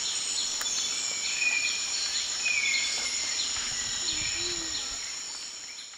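Forest ambience by a small stream: birds chirping in short calls over a steady background hiss, with a steady high-pitched whine throughout. It fades out near the end.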